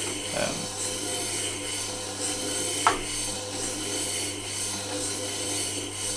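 Steel chisel being ground against a turning fine diamond wheel on a Tormek T8 sharpener: a steady scraping rasp over the hum of the grinder's motor, with a short click about three seconds in.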